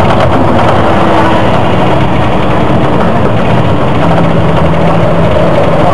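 A Volvo Olympian double-decker bus's diesel engine runs steadily under way, heard from inside the bus, as a loud drone. A higher whine comes up near the end.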